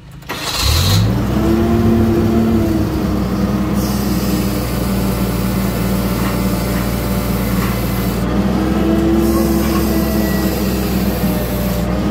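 Forklift engine coming up to speed about half a second in, then running steadily at a raised speed, with a hiss joining it after a few seconds.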